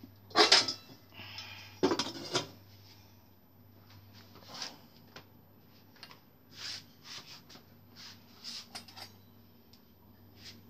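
Kitchen utensils clattering against a steel pan and a ceramic serving bowl, two loud clanks in the first couple of seconds, then fainter scattered knocks and rustles.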